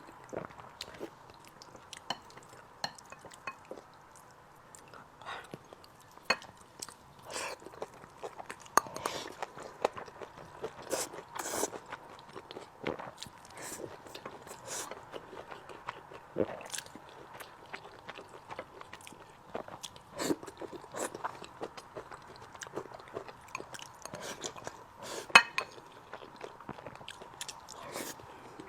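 Close-miked eating sounds: a person chewing and biting food, with irregular crunches and wet mouth clicks, one sharper crunch near the end. A faint steady whine runs underneath.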